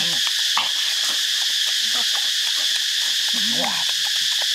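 Steady, high insect chorus. Over it come close-up eating sounds: wet chewing and lip-smacking clicks, with a short hummed "mm" right at the start and another about three and a half seconds in.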